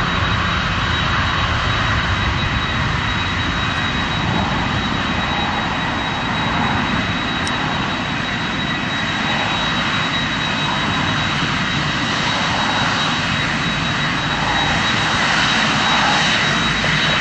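Jet airliner engines running steadily: a low rumble with a high, steady fan whine, growing a little louder near the end.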